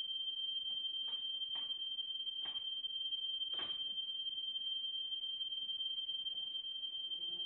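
A steady high-pitched pure tone held without change, with four faint brief noises in the first half, the last a little longer than the others.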